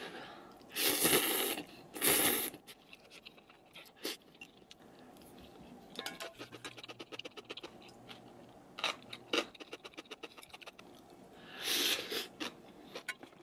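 Crunchy bites of food and chewing up close: two loud crunches about a second apart near the start and another near the end, with small clicks and scrapes in between.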